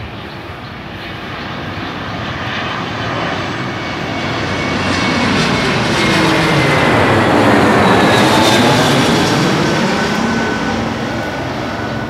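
Twin-engine jet airliner on landing approach with gear down, passing low overhead: the turbofan engine roar swells to a peak about eight seconds in and then eases, its whine falling in pitch as the plane goes by.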